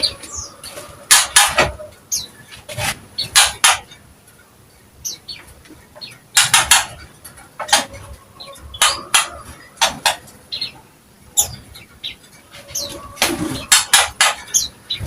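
Cucak ijo (green leafbird) calling with short, quick high notes. Sharp clattering bursts come in clusters every second or two.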